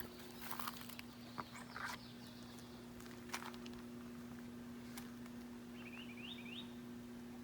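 Footsteps crunching on dry leaves, a few steps in the first half. About six seconds in, a small bird gives a quick series of short rising chirps, over a faint steady low hum.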